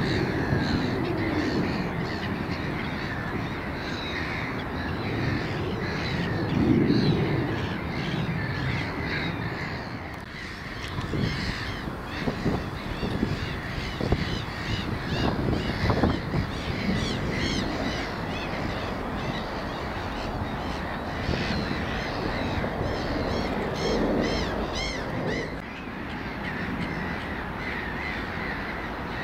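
Birds calling, with repeated cawing, over a steady low background rumble.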